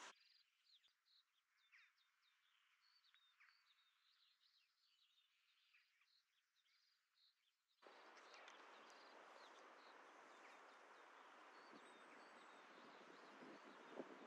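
Near silence outdoors, with small birds chirping faintly. About eight seconds in, a soft, steady hiss of outdoor background noise comes in under the chirps.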